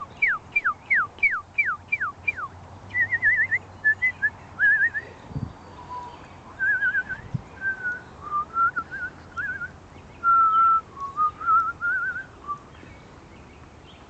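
A person whistling a bird-like tune. First comes a run of about eight quick falling slurs, roughly three a second, then warbling, trilled phrases that stop about a second and a half before the end.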